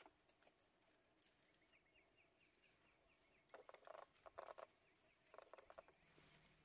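Faint crackling and rustling in short bursts from elephants moving in dry grass, loudest a little past the middle. A rapid run of high chirps sounds for about a second and a half early on.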